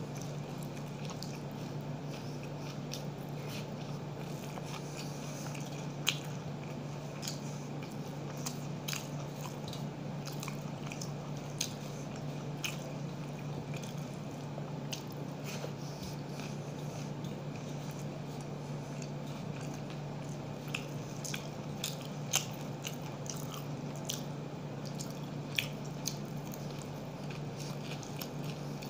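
Close-up eating sounds: a man chewing and smacking while mixing rice by hand on a metal plate, with scattered sharp clicks over a steady low hum.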